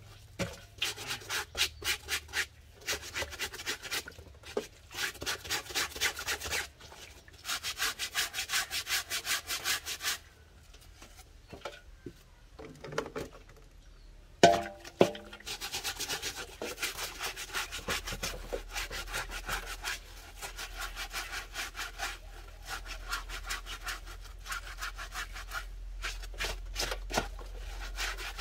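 Rapid, repeated scraping strokes in runs of a few seconds, with a lull around the middle where two sharp knocks stand out.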